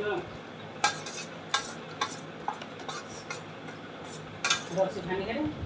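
Metal spoon clinking and scraping against a stainless steel plate while rice is eaten, a string of short clinks about every half second.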